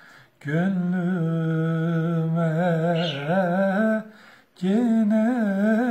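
A man singing a slow Turkish folk song unaccompanied, holding long, wavering, ornamented notes, with two short pauses for breath.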